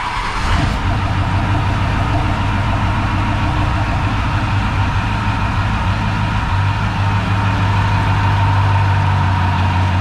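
Ford 7.3L Powerstroke turbo-diesel V8 catching right at the start and running on at idle, with a steady whine over the engine note. This is its first start after a valve-spring swap, heard from the driver's seat. The idle settles about six and a half seconds in.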